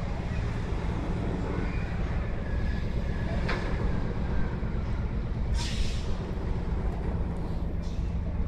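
Low, steady rumble of large ship machinery, with a short hiss a little after five and a half seconds in.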